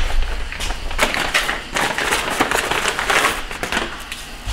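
Dense, irregular crackling and clicking of a transmission wiring harness and its plastic connectors being handled as the harness is fitted.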